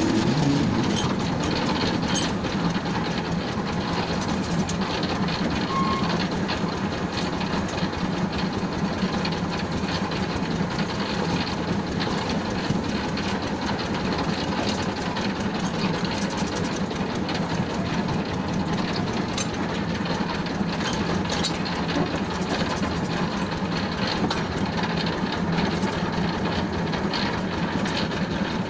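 Motorised draisine towing a coupled car along light railway track: a steady engine drone under continuous clicking and rattling from the wheels and running gear.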